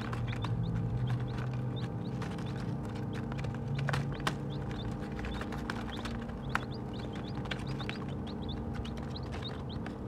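Baby chicks peeping, many short high cheeps overlapping, while they peck feed off paper with light, sharp beak taps; two taps stand out, about four and six and a half seconds in. A steady low hum runs underneath.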